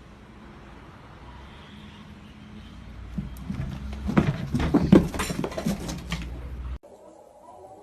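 A pet animal making a run of loud, short vocal sounds from about three seconds in, over a steady low hum, cut off suddenly near the end.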